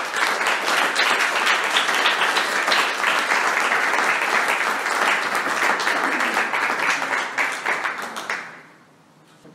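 Audience applauding at the end of a talk. The clapping is loud and dense, then thins and dies away about eight and a half seconds in.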